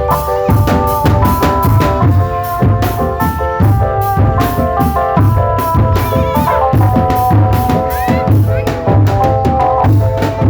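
Drum band playing: bass and snare drums keep a steady, driving beat under a sustained melody line.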